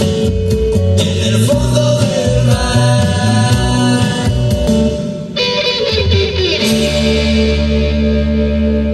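Song with singing and guitar over a steady beat; about two-thirds of the way through it settles into a long held chord.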